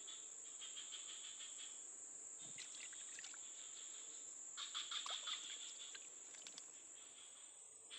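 Night insects, likely crickets, keep up a steady high-pitched chorus, with short bursts of rapid pulsing every second or two.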